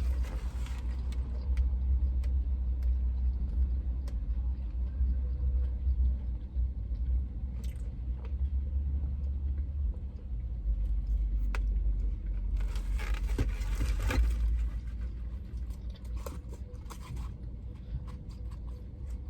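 Chewing and crunching of fried catfish nuggets inside a parked truck's cab, over a steady low rumble, with scattered small clicks and a louder stretch of crunching about 13 seconds in.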